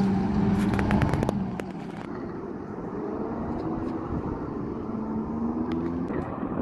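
Tracked armored personnel carrier driving on dirt: its engine runs with a steady drone, with a quick run of clanks in the first second or so. The engine note rises near the end.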